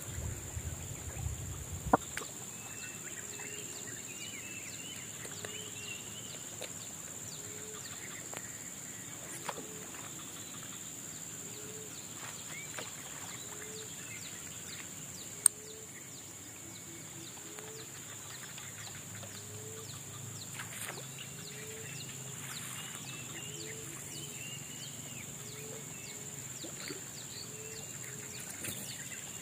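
Wildlife around a forest lake: a short, low call repeated about once a second, with birds chirping higher up and a steady high-pitched hum behind them. A couple of sharp clicks stand out, one about two seconds in and one about halfway.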